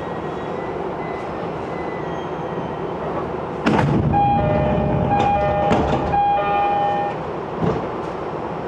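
Inside an E231-series commuter train running on the line: a steady rumble, then about three and a half seconds in a sudden louder clatter with an on-and-off ringing tone lasting about three seconds before the steady rumble returns.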